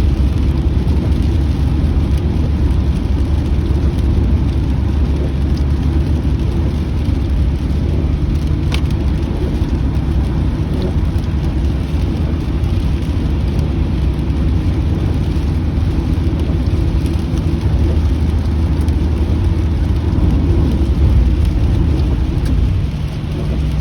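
Inside a moving car in the rain: a steady low rumble of tyres and engine, with rain on the car and an occasional faint tick.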